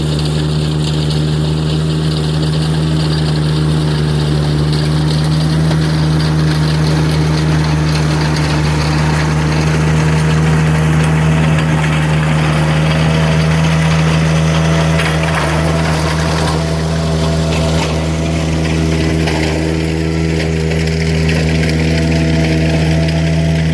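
Engine idling steadily at one constant speed, a strong low hum with a stack of higher overtones.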